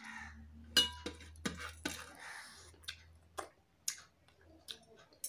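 Eating by hand from a stainless steel plate: scattered small mouth clicks and smacks of chewing and licking fingers, with a light ringing clink on the plate about a second in.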